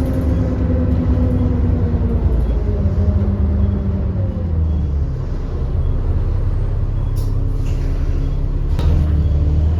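ADL Enviro400 double-decker bus heard from on board, its engine running under way with a deep drone and a higher whine that falls slowly in pitch, the bus's hoover-like whine. Two short sharp hisses or clicks break in about 7 and 9 seconds in.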